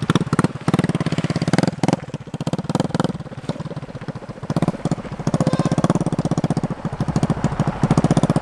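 Honda Wave step-through motorcycle's four-stroke single-cylinder engine running through a DIY exhaust as it pulls away and rides off, its exhaust beating in rapid, even pulses. It fades somewhat midway and grows loud again near the end as the bike comes back.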